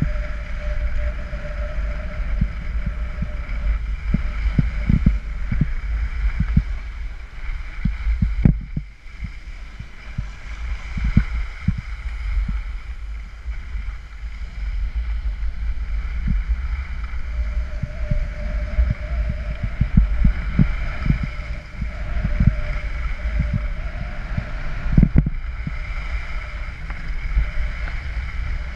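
Wind rumbling over an action camera's microphone during a downhill ski run, with skis hissing and scraping over groomed snow. There are occasional thumps.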